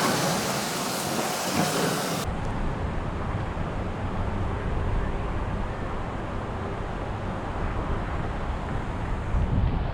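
Wind buffeting the action-camera microphone: a steady low rumble, with a bright hiss over it for the first two seconds that cuts off suddenly.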